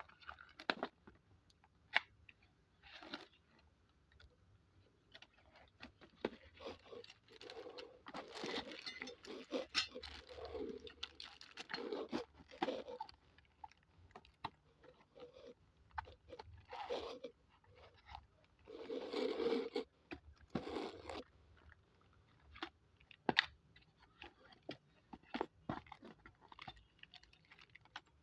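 Irregular crinkling and scraping of a TV wall bracket set being unpacked and handled, with sharp clicks now and then.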